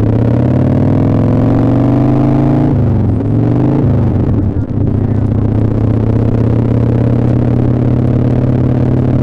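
Motorcycle engine accelerating with rising pitch, changing gear about three seconds in, then holding a steady cruising note, heard muffled through a leather jacket.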